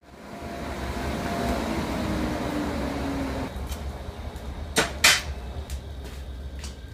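Workshop sounds at a lit forge: a steady hum and hiss for the first few seconds, then scattered knocks and clatter, with two sharp, loud knocks close together about five seconds in.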